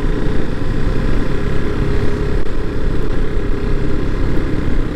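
KTM RC 390's single-cylinder engine running steadily as the motorcycle is ridden along a rough road, with steady road noise.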